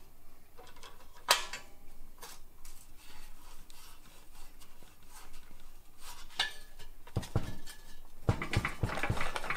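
Steel flat bar and a hold-down clamp clanking and scraping on a perforated steel fabrication table as they are loosened and moved. One sharp clank comes about a second in, and a denser clatter of knocks and scrapes comes near the end.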